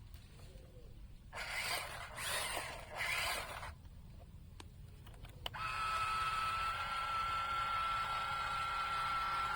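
Small electric gear motors of a radio-controlled toy excavator whirring: three short bursts, then a steady, even whine that starts about halfway through.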